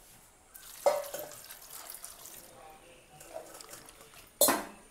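Steel kitchenware clinking about a second in, followed by a short pouring hiss and small clatters. Near the end comes a loud clank with ringing as the aluminium pressure cooker is handled on the stone countertop.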